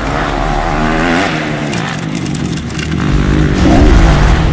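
Motocross bike engine revving up and down as the rider works the throttle through a corner, with the deep, low sound getting louder in the last second or so.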